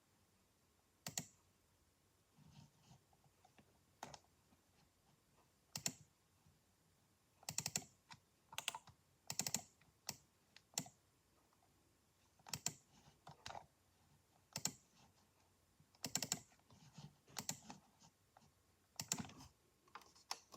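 A desktop computer making irregular sharp clicks and short grinding bursts, a few clustered together, separated by quiet gaps. This is the grinding noise its owner reports as a recurring and worsening fault.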